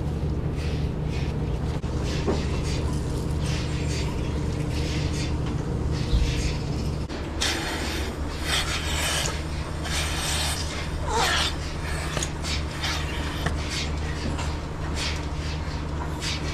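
Milking system running in a dairy barn: a steady low hum with a regular rhythmic hiss from the pulsators. About halfway through there is louder hissing and sucking of air as a milking unit is attached to a cow's teats.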